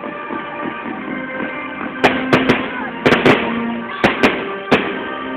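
Aerial fireworks bursting: a series of sharp bangs in quick clusters, starting about two seconds in, over music.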